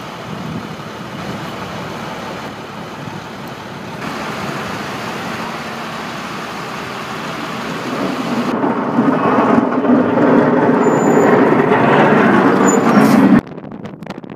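Strong wind buffeting the microphone in a loud, steady rush that grows louder, cutting off suddenly near the end.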